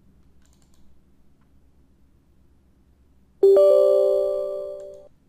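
Windows 10 system chime: a single bell-like tone that sounds about three and a half seconds in and fades away over a second and a half, set off as the downloaded installer is launched.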